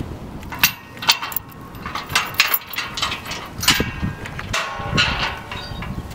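Hands working the lock of a tall steel security gate: a string of sharp metal clinks and rattles, several with a brief ringing, before the gate is pushed open.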